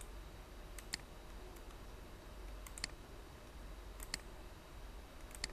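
Faint computer mouse clicks, about five over a few seconds, the later ones in quick pairs, over a low steady hiss.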